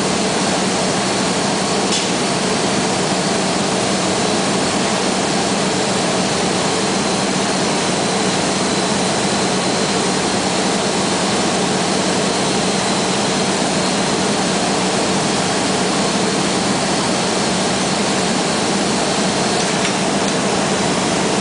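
Steady roar of a glassblowing furnace and the workshop's extraction running, with a steady low hum and a faint high whine.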